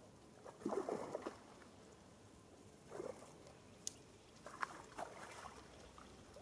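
Water splashing and sloshing in a few short bouts as a hooked carp is drawn into a landing net at the water's edge.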